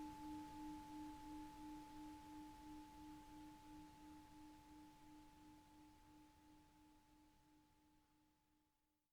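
Tibetan singing bowl ringing out and fading away. It has a low tone that pulses about three times a second and a fainter higher overtone, and it dies away to nothing near the end.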